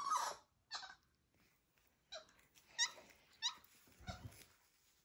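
Capuchin monkey giving a series of short, high-pitched chirps and squeaks, with a soft thump just after four seconds in.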